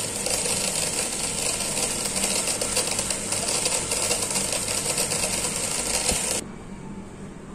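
The robot's small DC gear motors driving its wheels, running steadily with a fast, buzzing rattle, then cutting off suddenly about six seconds in as the robot halts.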